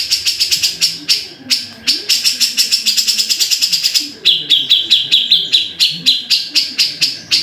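Grey-cheeked bulbul (cucak jenggot) calling in a fast run of sharp, repeated chattering notes, about ten a second, switching to a slightly lower note about four seconds in.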